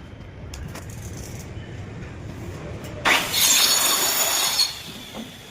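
Sliding glass shower door running on its rollers along the track: a low rumble that builds, then a loud, high squeal for about a second and a half, starting about three seconds in.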